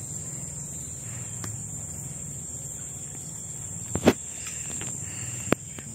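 Steady, even high-pitched drone of insects. A sharp double knock about four seconds in and a single sharp click about a second and a half later stand out above it.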